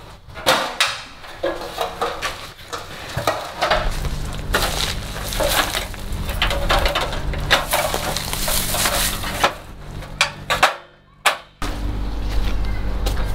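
Aluminium stepladder clanking and rattling as it is handled and set in place, with repeated knocks and metallic clatter. A steady low rumble comes in about four seconds in.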